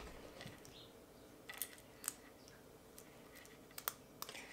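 A handful of faint, scattered clicks and taps from a small plastic toy race car being handled and fitted together on a tabletop.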